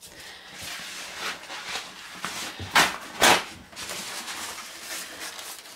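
Rustling and handling noises from items being picked up, with two short, loud rustles about half a second apart roughly three seconds in.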